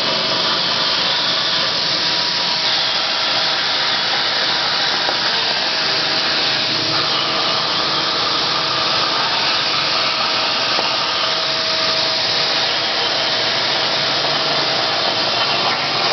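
A Hypertherm plasma torch with FineCut consumables is cutting 6 mm carbon steel plate on a CNC table. The plasma arc makes a steady hiss that runs unbroken throughout.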